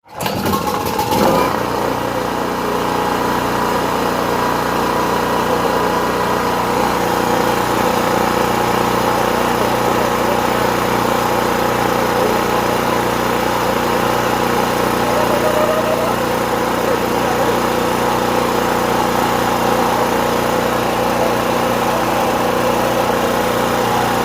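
Portable gas generator's small engine running steadily at an even speed, starting abruptly at the beginning.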